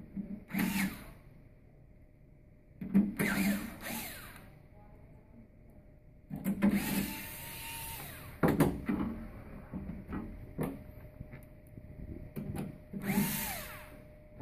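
Hitachi cordless screwdriver driving Phillips screws into the sheet-metal cover of a chocolate tempering machine. It runs in about four short bursts, its motor whine rising and falling, with clicks of handling in between.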